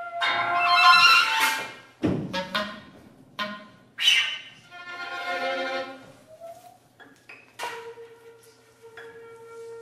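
Contemporary chamber music for flute, clarinet, violin and piano: a loud, sudden full-ensemble attack, then a run of short, sharp accents with a deep struck one about two seconds in, and a single held note near the end.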